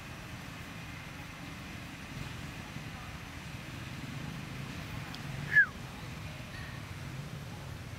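Outdoor ambience: a steady low rumble with faint short chirps now and then, and about five and a half seconds in one loud, short call that drops sharply in pitch.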